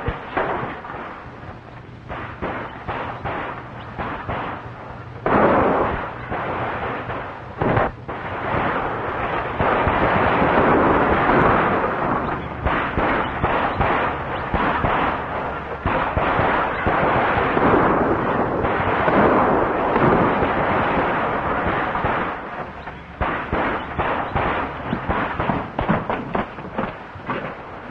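Old film soundtrack full of action noise: a long run of sharp bangs, blows and crashes, beginning with a fistfight in an office. It grows thick and steady through the middle, then breaks back into separate bangs near the end.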